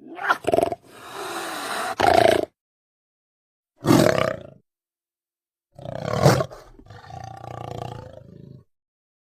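Dinosaur roar sound effects: a rasping growl ending in a sharper cry, a short roar about four seconds in, then a louder roar that trails off into a long low growl. Short silences separate the calls.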